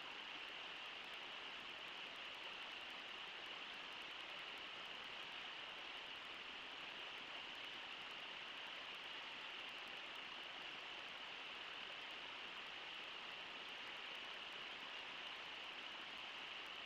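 Steady rush of river water running over shallow riffles: an even hiss that doesn't change.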